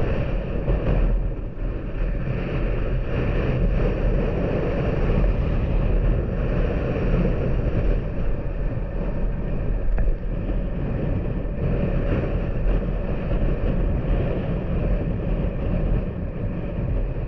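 Motorcycle engine running at a steady cruising speed while riding, with wind buffeting the microphone.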